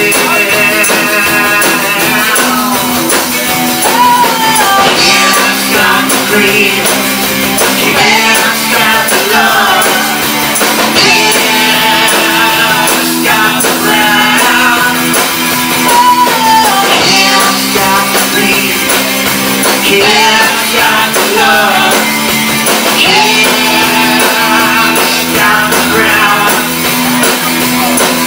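Indie rock band playing live: a wavering, bending harmonica lead over electric guitar, bass and drums.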